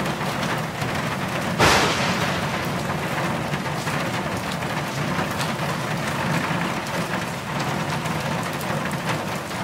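Crowd of dancers applauding at the end of the song: steady dense clapping with a sudden louder burst of clapping and cheering about a second and a half in.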